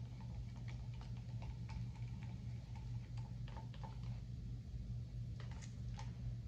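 Wooden stir stick stirring thin acrylic paint in a plastic measuring cup, giving irregular light clicks and taps as it knocks against the cup walls, over a steady low hum.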